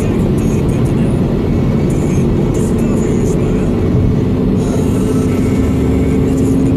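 Steady road and engine noise heard inside a car cruising at motorway speed: an even low rumble of tyres and engine, with a faint low hum joining in about halfway through.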